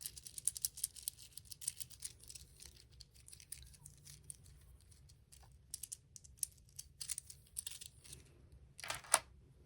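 Small 3D-printed plastic articulated toy being worked by hand, its moving parts clicking and rattling: a rapid run of ticks for the first few seconds, then scattered clicks, and a louder clatter near the end.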